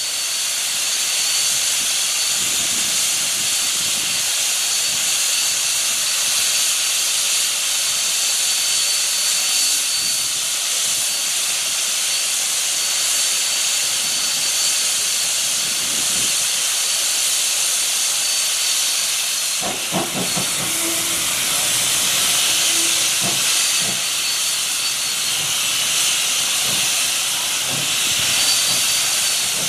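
Standing steam locomotive 3016 venting steam with a loud, steady hiss. Scattered short knocks come in over the last third.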